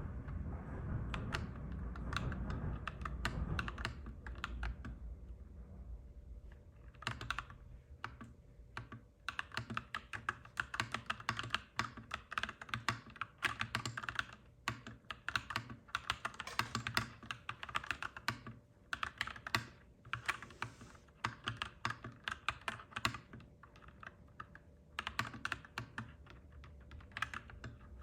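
Clacky mechanical keyboard being typed on in quick runs of keystrokes, with a couple of short pauses. A low rumble under the typing at the start fades away over the first few seconds.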